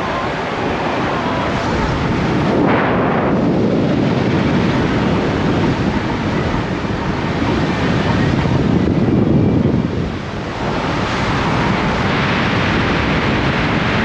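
Wind rushing and buffeting the microphone, with road noise, filmed from a moving vehicle. It eases briefly about ten seconds in.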